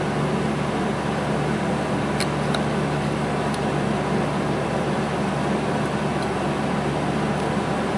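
A steady machine hum with an even hiss underneath, unchanging throughout, and a couple of faint ticks about two and three and a half seconds in.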